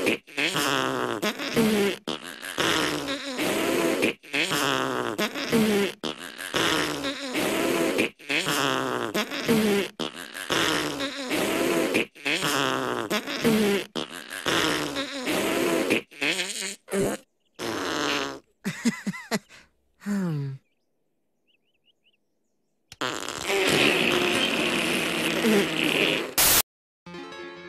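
Cartoon raspberry, a sputtering fart-like noise with a wobbling pitch. It is repeated over and over about every two seconds, the repeats getting shorter and breaking off about 20 seconds in. After a short silence comes one more longer sputter, which cuts off suddenly near the end.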